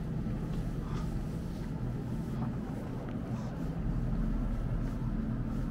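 Steady low rumbling ambience of a vast underground salt-mine hall, with a few faint soft ticks.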